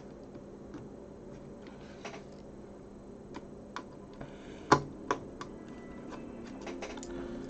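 Irregular light clicks and taps of small plastic case parts and screws being handled during reassembly, with a sharper knock about four and a half seconds in and another just after.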